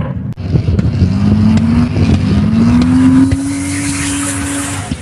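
Rally car's engine under acceleration, its note climbing steadily for about four seconds before dropping away near the end.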